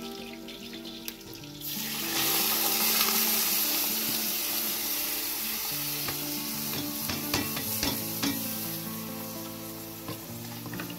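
Loud sizzling of hot oil as drained rice is tipped into a large aluminium pot, coming in suddenly about two seconds in and slowly easing off, with a few clinks of the ladle against the pot.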